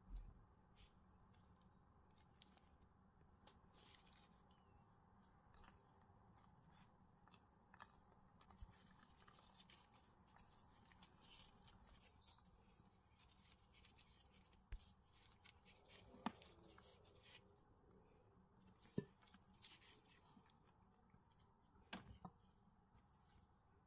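Faint scraping and tapping of a table knife, then a silicone spatula, stirring and folding thick whipped cream mixture in a ceramic bowl, with a few sharper knocks in the second half, against near silence.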